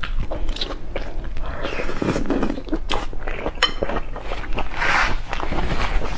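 A person biting and chewing eggs, with many short wet mouth clicks.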